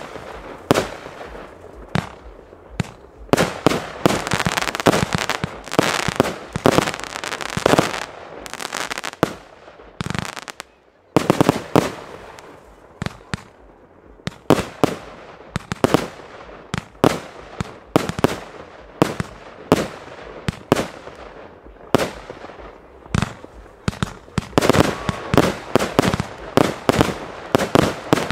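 Fireworks display: a rapid run of aerial shell bursts and bangs, with dense crackling stretches and a short lull about ten seconds in.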